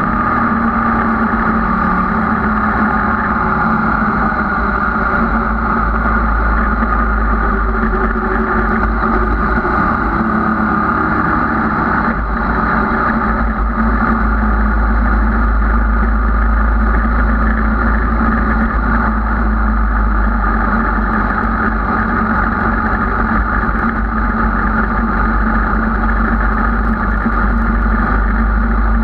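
Motorcycle engine running steadily while riding at road speed, with its pitch shifting a little in the first few seconds, over a constant low wind rumble.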